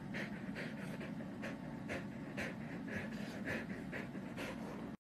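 Boxer dog panting in a quick, even rhythm of short breaths, about two a second.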